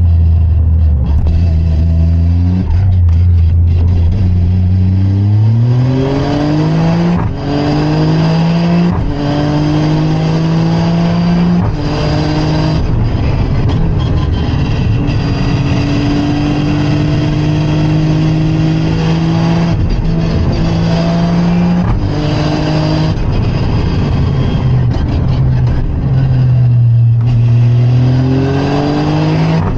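Engine of a manual Toyota hatchback heard from inside the cabin on a track lap. It climbs in pitch under hard acceleration, with short steps down at the gear changes, and holds high through the middle. It falls away a few seconds before the end and then climbs again.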